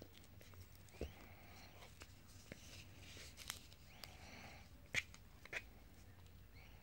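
Faint handling noise of a hand-made leather palm sap being turned in the hand: soft rubbing of leather on skin with a few small clicks, the loudest about five seconds in.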